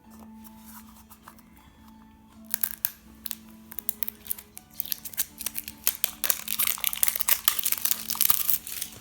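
A squishy toy's packaging being torn open and crinkled by hand. The crackling starts about two and a half seconds in and gets busier and louder toward the end, over soft background music.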